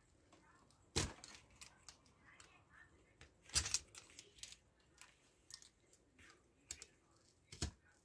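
Small metal clicks and scrapes of pliers and a blade working against a Westclox Baby Ben's brass clock movement, prying at a stiff pressed-on knob. Three sharper clicks stand out, about a second in, midway and near the end, the one midway the loudest, with lighter ticks between.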